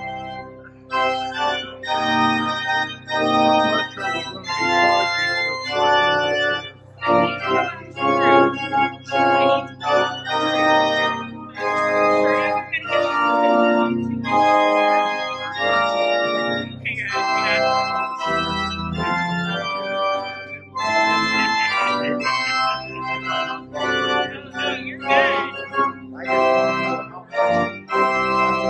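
Organ playing the postlude at the close of a church service: sustained chords that change every second or so over long-held low bass notes.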